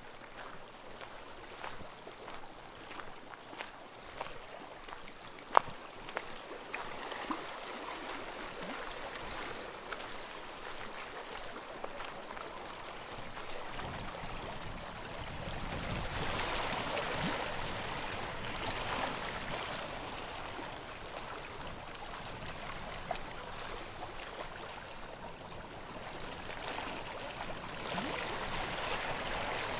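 Small sea waves lapping and washing in, swelling louder about halfway through and again near the end. A single sharp click about five seconds in.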